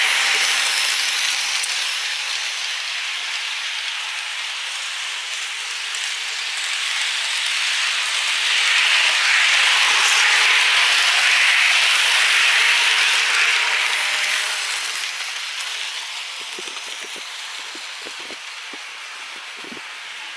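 Märklin model train coaches running past on the track: a steady rushing clatter of small metal wheels on rail. It is loud at first, dips, swells again from about eight to fourteen seconds as the train passes close, then fades away, with a few faint clicks near the end.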